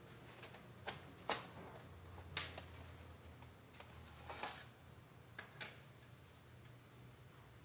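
Scattered small clicks and taps of plastic and metal parts being handled while working on a laptop. The sharpest click is about a second in, and a short scrape follows midway, over a low steady hum.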